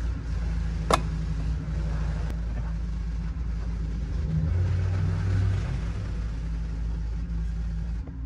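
Motor oil pouring from a plastic jug into an engine's oil filler neck, under a steady low hum like an idling engine. There is a single sharp knock about a second in.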